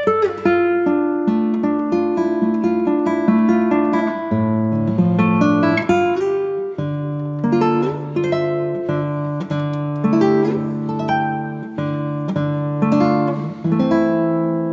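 Background music: acoustic guitar playing a steady run of plucked notes over held bass notes.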